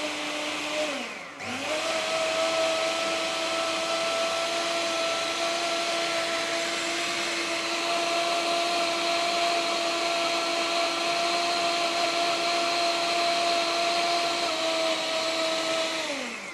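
Electric countertop blender with a glass jug, its motor whirring at a steady pitch as it blends liquid pancake batter. About a second in, the motor slows almost to a stop and speeds back up, then runs evenly and winds down at the very end.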